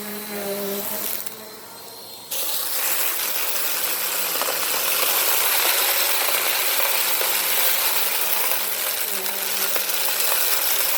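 Bissell Power Force Compact vacuum cleaner switched on about two seconds in, then running steadily while it sucks up sand and grit, which rattles and clicks through it.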